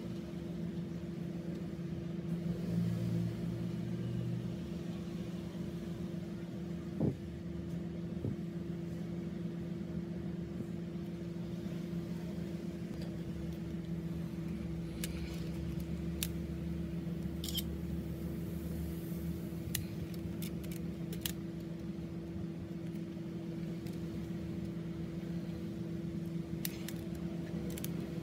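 A steady, low mechanical hum with a few light clicks and taps scattered through it.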